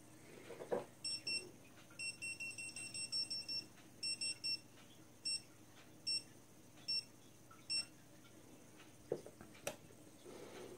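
Dogtrace D-fence 1001 collar receiver beeping its warning signal in the warning zone of the boundary wire loop. The high electronic beep comes in quick runs at first, then as single beeps a little under a second apart. There are a couple of faint clicks near the end.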